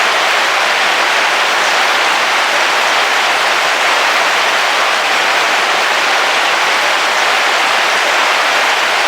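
Heavy rain falling on a car roof, heard from inside the vehicle: a steady, even hiss of drops with no thunder.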